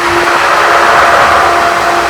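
Pool pump running with a steady hum as it primes after a restart, with a rushing hiss that swells about a second in: air and water being let out through the sand filter's air bleeder.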